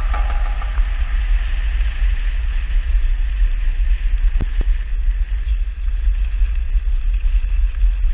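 Steady rumble and hiss of a mountain board's 9-inch Primo Striker wheels rolling fast over a gravel track, mixed with wind noise on the microphone.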